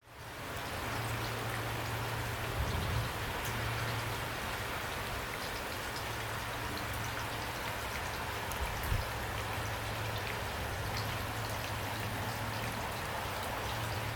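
Heavy rain falling steadily, a dense even hiss of many drops, over a steady low hum. Two soft low thumps come through about three and nine seconds in.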